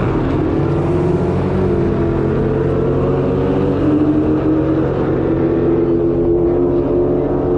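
Whipple-supercharged 5.0 Coyote V8 of a 2019 Ford F150 running at low revs, a steady engine note with a brief rise in pitch near the start and small drifts up and down after.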